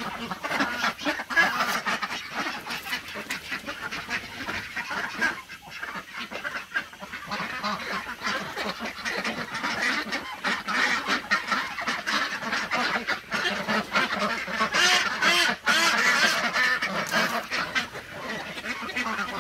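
A flock of domestic ducks quacking continuously, many overlapping calls at once, as they crowd around begging for and eating food.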